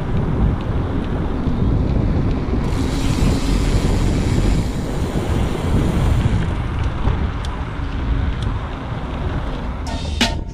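Wind buffeting the GoPro Hero 5's microphone as the mountain bike runs fast down a paved road: a dense, steady low rumble. Near the end, music with sharp beats cuts in.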